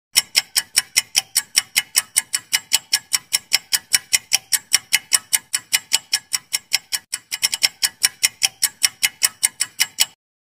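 Quiz timer sound effect: a clock ticking fast and evenly, about four or five ticks a second, with a short flurry of quicker ticks about two-thirds of the way through. It cuts off suddenly as the count reaches ten.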